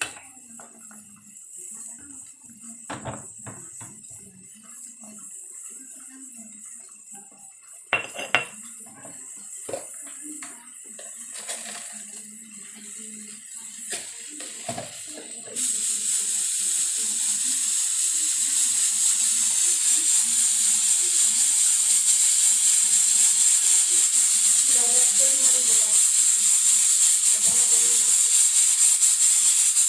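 Stone pestle knocking and grinding in a stone mortar, a few sharp knocks among softer scraping. About halfway, a sudden loud, steady hiss of steam escaping from the valve of an aluminium pressure cooker, pulsing rapidly.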